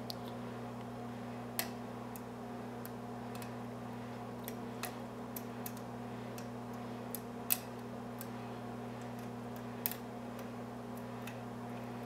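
Irregular small metallic clicks of a hook pick and tension wrench working the pin stack inside a Brinks brass padlock during single-pin picking, over a steady low hum. The clicks come at uneven intervals, one sharper click in the middle.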